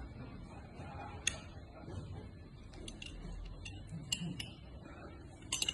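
A few sharp, light metallic clicks and ticks, scattered and then bunched near the end, from a copper pipe being handled and set in a hand pipe bender.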